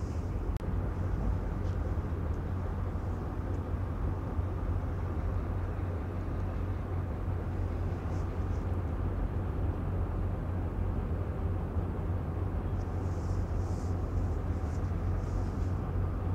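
Steady low rumble of ship engines holding one deep hum, from a harbour tug pushing a frigate in to dock.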